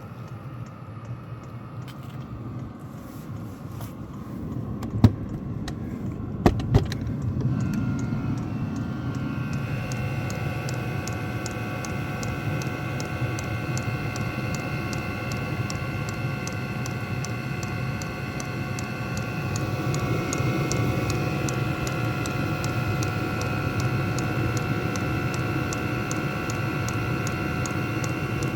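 Diesel heater starting up and running. A low rumble builds over the first several seconds, with three sharp clicks about five to seven seconds in. From about nine seconds in, a steady blower-fan whine joins the rumble, with a fast, even ticking throughout.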